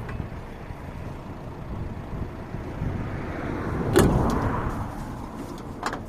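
Ford Transit Connect van working under load as it tries to pull a rock, a steady low rumble that builds, then a sharp loud knock about four seconds in followed by a brief rush of noise, and another sharp knock near the end.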